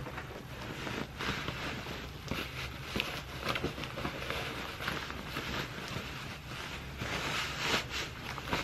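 Rustling and swishing of a stiff OCP camouflage uniform top being pulled on over a fleece pullover, the fabric brushing as the arms go into the sleeves. The rustling comes as a run of short scratchy strokes and grows louder about seven seconds in.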